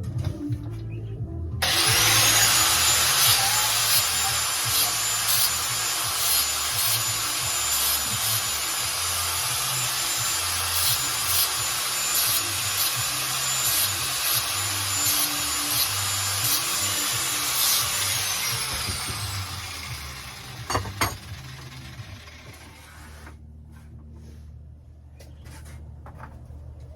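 Angle grinder cutting metal: the motor spins up about a second and a half in to a steady high whine over a harsh grinding rasp, runs for about sixteen seconds, then winds down with a falling whine. A sharp knock comes as it winds down.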